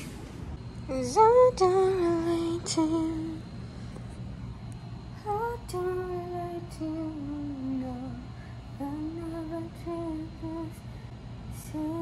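A woman singing a slow melody with no instruments, in a few phrases of long held notes that slide between pitches.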